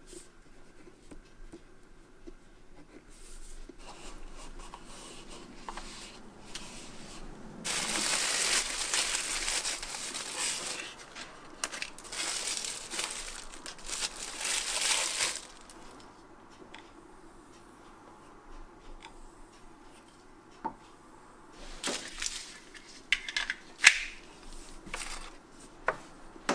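Tissue paper crinkling and rustling as hands wrap a small parcel. It is loudest for about eight seconds in the middle, with fainter rustling before it. Near the end come a few sharp clicks and knocks of items being handled and set down on a wooden workbench.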